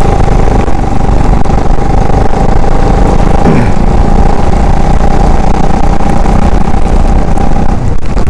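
Wind rushing loudly over an action camera's microphone on a moving motorcycle, mixed with the steady drone of its engine and a constant tone. About three and a half seconds in, a short sound falls quickly in pitch.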